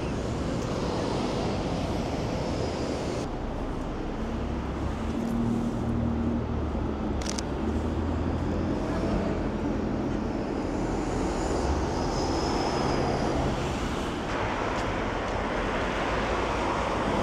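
City street traffic: a steady wash of cars and engines running, with a short sharp click about seven seconds in.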